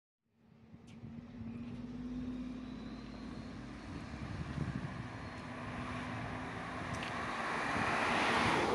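Street traffic: a car drives past close by, its engine and tyre noise swelling to a peak near the end, over a steady low hum of traffic.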